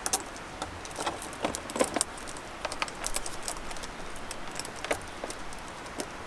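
Irregular light clicks and clinks of small hard objects being handled, a few each second.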